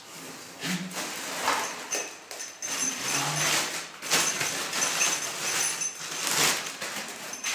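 A clear plastic bag being handled, rustling and crinkling in irregular bursts.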